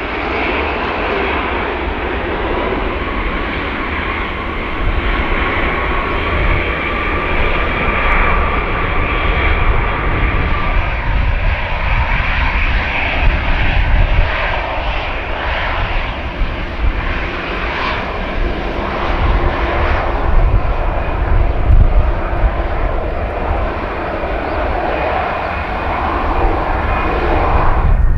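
Jet airliner engines running close by: a loud, steady roar with a deep rumble and high whining tones that shift slowly in pitch.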